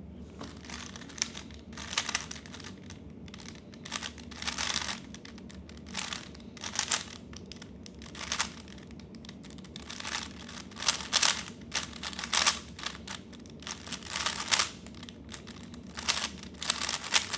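3x3 Rubik's cube turned fast in a timed speedsolve: quick spurts of plastic clicking and clacking as the layers turn, in irregular bursts with short pauses between them.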